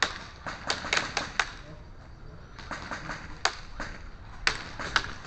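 Airsoft guns firing: a string of sharp snapping shots, irregularly spaced and coming in loose clusters, about a dozen in all.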